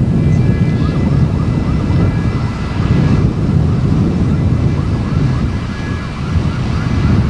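A heavy low rumble of wind buffeting the microphone, with a siren wailing in quick repeated rising yelps, about three a second, in the background.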